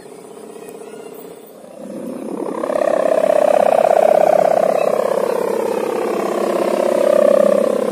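A sowangan, the hummer fitted to a flying gapangan kite, droning in the wind. It is a wavering hum with many overtones that swells up about two seconds in and then stays loud.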